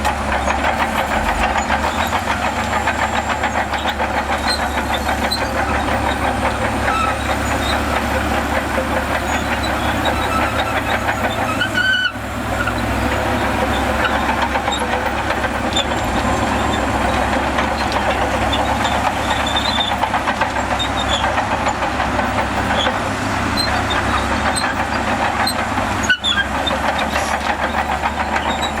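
Bulldozer's diesel engine running steadily under work, with a dense rattle over it and a few faint squeaks. The sound breaks off for a moment twice, about 12 and 26 seconds in.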